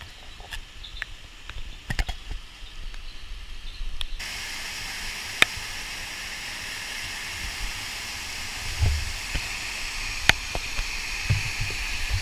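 Steady rush of a hot-spring waterfall cascade, starting abruptly about four seconds in and running on evenly, with two sharp clicks. Before it, only soft scattered taps and footfalls on wet stairs in the rain.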